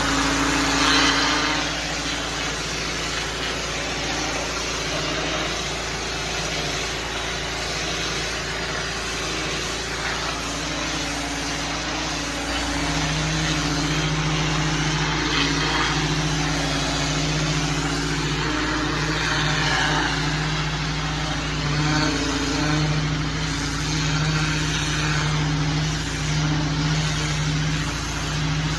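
Small petrol engine running steadily under a broad hiss, the engine hum growing stronger a little under halfway through.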